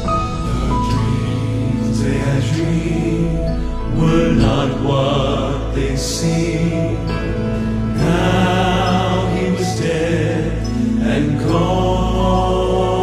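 A male gospel vocal quartet singing slow, sustained phrases in close harmony over piano accompaniment, with new vocal phrases entering about four, eight and eleven seconds in.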